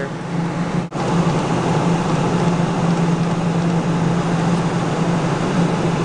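Steady background hum and hiss of an arcade, with a constant low hum underneath; it drops out for an instant about a second in.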